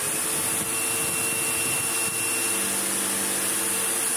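Sebo Automatic X7 upright vacuum cleaner running steadily on a rug, its suction motor and brush roll going just after being switched on; its hum shifts in tone about two and a half seconds in.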